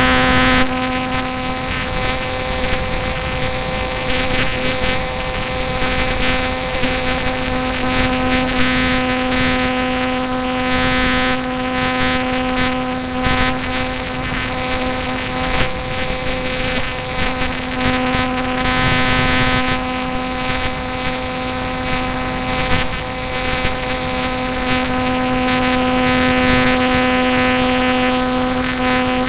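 Aircraft engine running steadily at one unchanging pitch, heard close up on board, with a rushing hiss of airflow over the microphone that swells and fades.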